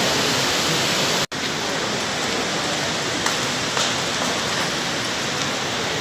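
Steady rushing hiss that drops out for an instant about a second in, then carries on slightly quieter with a few faint ticks.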